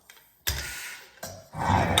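Clothing rack parts being handled during assembly: a sharp knock about half a second in, then rough rubbing and scraping that grows louder near the end.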